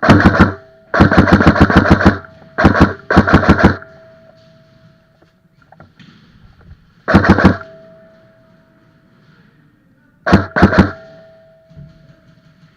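Airsoft gun firing in short automatic bursts of rapid shots: seven bursts in all, three close together at the start, then two more spaced out several seconds apart.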